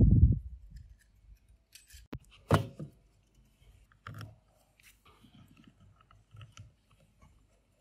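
Handling noise from a Weber iGrill 2 wireless thermometer as its temperature-probe plugs are pushed into the sockets: a dull thump at the start, a sharp click about two and a half seconds in, then scattered lighter clicks and rustling.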